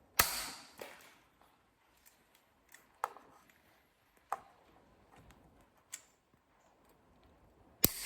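Cutters snipping the tails off plastic cable ties: a handful of sharp snips spaced a second or more apart, the loudest just after the start and another near the end.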